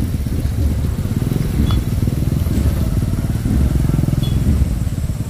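A vehicle engine running steadily and loudly, with a fast low pulsing and no change in speed.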